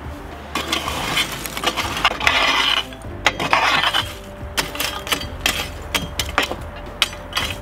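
Long-handled metal rake scraping glowing coals forward across the firebrick floor of a wood-fired oven. A rough scrape over the first few seconds, then a run of sharp clinks and knocks as lumps of charcoal tumble against the metal and brick.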